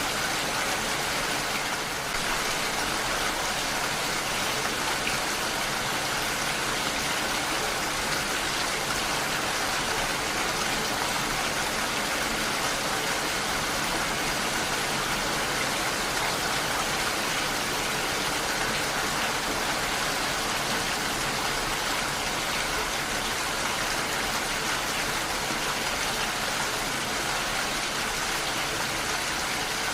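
Heavy rain falling steadily, a constant even hiss of water with no breaks.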